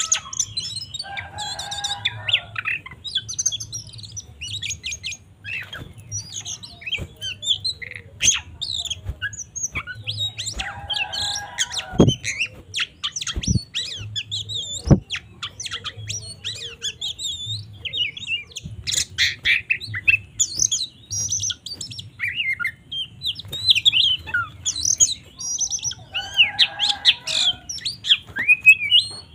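Oriental magpie-robin (kacer) singing in aggressive fighting mode: a fast, varied run of whistles and chirps. Three times it breaks into a harsh, buzzy chattering call. A few sharp clicks come in the middle.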